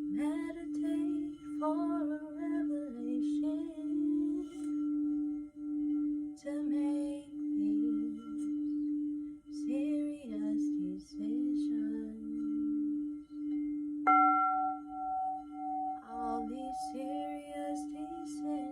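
Singing bowl sounding one steady low tone that swells and fades about once a second, as from a mallet circling the rim. About fourteen seconds in, a bowl is struck and a higher, brighter ring joins the hum.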